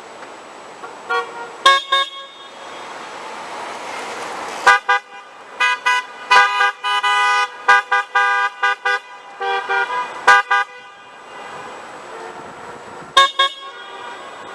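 Car horns honking at a roadside: a couple of short toots, then a long run of quick toots and longer blasts, with more near the end. Passing traffic swells between them.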